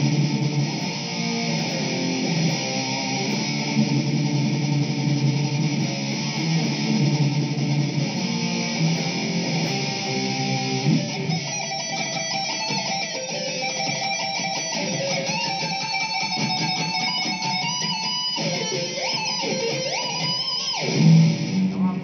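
Mexican-made Fender Stratocaster electric guitar with a DiMarzio YJM Fury pickup, played through an amplifier. It starts with lower-register playing, then from about halfway switches to a busy high lead line. The lead ends in several rising pitch glides before the playing stops just before the end.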